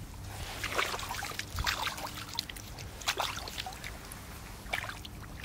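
Water splashing and trickling in short, irregular bursts, with the clearest splashes about a second in, around three seconds and near the end.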